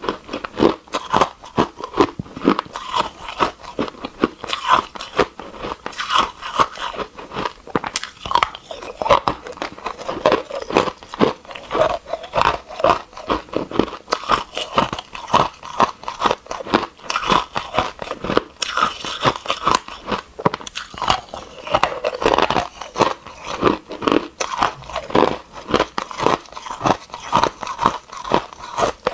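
Hard frozen ice cubes being bitten and chewed close to a clip-on microphone: a steady run of crisp crunches, a few a second.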